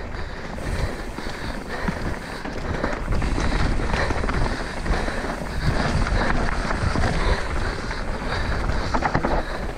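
Mountain bike descending a dry dirt singletrack: knobby tyres rolling over packed dirt and dry leaves, with the bike rattling over the bumps and wind rushing over the camera microphone. It gets louder about three seconds in, as the speed picks up.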